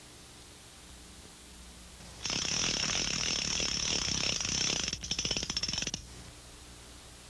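Cartoon sound effect of a steam engine, a Newcomen engine, hissing with a fast clattering rattle. It starts about two seconds in, stutters near its end and cuts off suddenly after about three and a half seconds, over a low steady hum.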